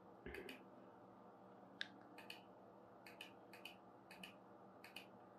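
Faint computer mouse clicks, left button, each a quick press-and-release pair, repeated roughly once or twice a second. A low thump comes just after the start.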